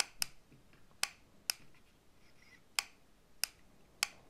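A series of sharp, irregularly spaced clicks, about seven in four seconds, over a quiet background.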